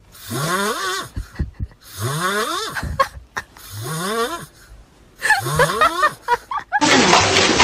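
Tabby cat snoring in its sleep: four drawn-out breaths, each a pitched tone rising like a whistle, about a second and a half apart. Near the end a sudden loud burst of noise cuts in.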